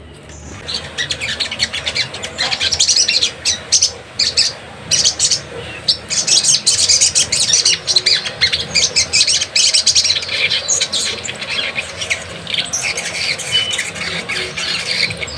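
Caged sogon singing, a rapid continuous run of high chirps and squawky notes. This is the full 'gacor' song that shows the wild-caught bird has settled into its care.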